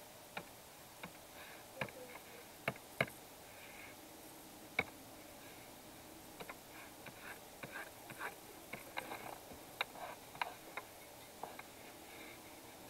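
Irregular light clicks and taps, bunched a few a second with short pauses between them, from a drawing tablet pen and keyboard in use.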